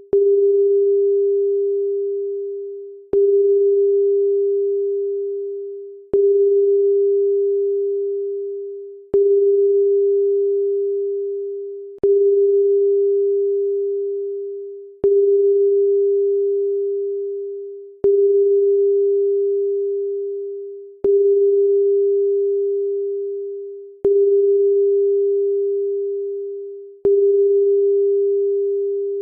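Loud electronic single-pitch tone, a pure beep a little above 400 Hz, that starts with a click about every three seconds and fades away before the next one starts.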